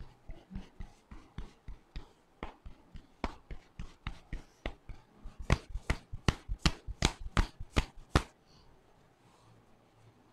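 Hands tapping rhythmically on the top of a head during a head massage, about three or four strikes a second. The strikes grow much louder about five seconds in and stop suddenly about eight seconds in.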